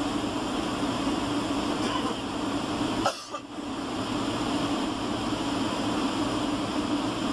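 Steady cabin noise inside a Boeing 757-300 airliner descending on approach: a constant hum under rushing airflow. About three seconds in there is a single sharp click, and the noise drops out briefly before returning.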